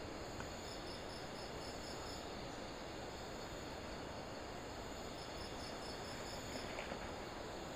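Night insects, crickets, chirping and trilling. Two bouts of rapid high chirps, about five a second, come about a second in and again about five seconds in, over a steady high trill and a steady rushing hiss.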